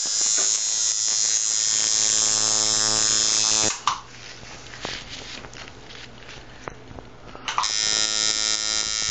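Tattoo machine buzzing steadily, cutting off with a click a little under four seconds in, then starting up again about three and a half seconds later. In the gap there are only a few faint clicks.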